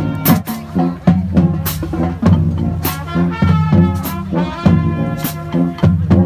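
A band playing music with a steady beat, a sharp cymbal-like crash landing about every second and a quarter over a strong bass line.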